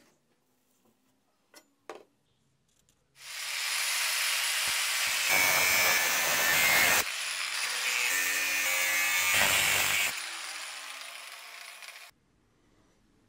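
An electric power tool cutting into steel, starting about three seconds in and running hard for about seven seconds with a brief let-up midway, then winding down with a falling whine after it is switched off. A few light clicks of handled metal come before it.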